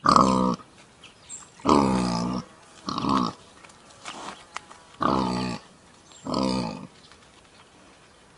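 Common warthog grunting: five loud, pitched grunts of about half a second each, separated by short pauses.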